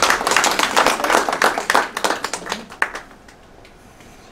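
Audience applauding, a dense patter of clapping that dies away about three seconds in.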